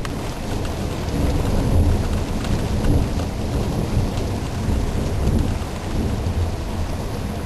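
Rain falling steadily under low, rolling thunder, the rumble swelling about a second in and again around the middle, with scattered raindrop ticks on top.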